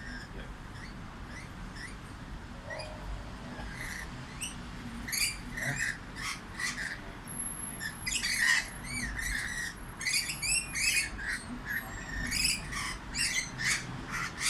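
Several pet birds calling in short chirps and squawks, sparse at first and coming thick and fast from about five seconds in.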